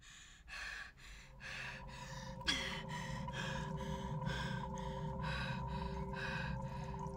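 Rapid, heavy breathing, about two breaths a second. From about a second in, a low rumble and a few steady ringing tones rise beneath it, with one sharp hit midway.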